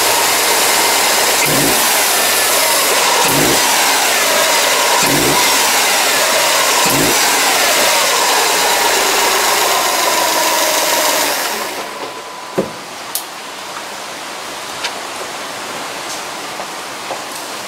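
Subaru WRX STI (VAB) turbocharged 2.0-litre EJ20 boxer four running in the engine bay and revved in free revs, the pitch rising and falling with short blips about every two seconds. About twelve seconds in the sound drops to a quieter, steadier level with a few sharp clicks.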